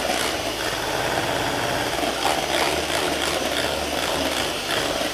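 Electric hand mixer running steadily, its beaters whipping cream and sugar into chantilly in a stainless steel bowl.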